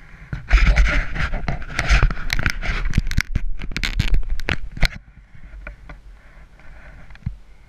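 Skis scraping and chattering over groomed snow on a downhill run, with many sharp clicks. It is loud for the first five seconds or so, then eases to a softer hiss.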